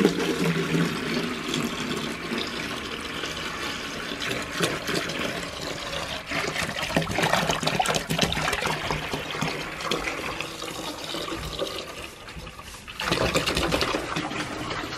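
Water pouring in a steady stream from a plastic gallon jug into a plastic bucket, splashing as the bucket fills. The stream dips briefly about two seconds before the end.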